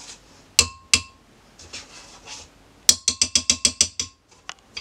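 Spoon clinking against the rim of a glass blender jug to knock mango sorbet off it. Two sharp ringing clinks come first, then a quick run of about ten taps.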